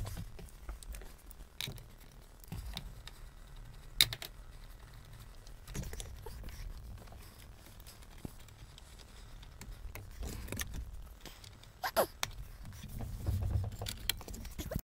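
Scattered clicks and light knocks of hand work refitting the steering wheel and column trim, with a sharp click about four seconds in and a cluster of clicks about twelve seconds in.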